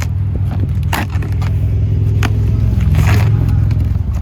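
A steady low rumble throughout, with a few sharp scrapes and crackles of packaging being handled about one, two and three seconds in, as a new starter motor is taken out of its box.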